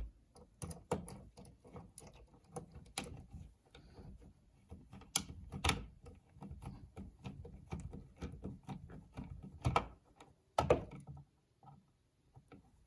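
Screwdriver and hands working on a wall power outlet: irregular clicks, taps and scrapes of screws being turned and the plastic receptacle being handled, with a few louder knocks about five seconds in and again near ten seconds.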